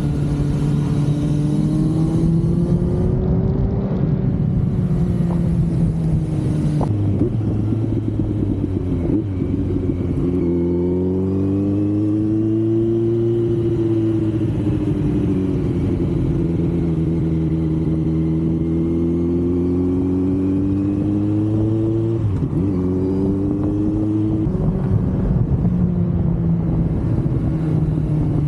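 Kawasaki Z900 inline-four engine under way, its note rising and falling with the throttle, with abrupt pitch drops as it shifts gear about a quarter of the way in and again about three-quarters of the way through.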